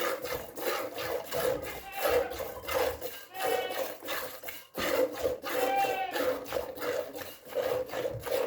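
Hand-milking a dairy goat: rhythmic squirts of milk hitting a metal pail, a few strokes a second, with the pail ringing.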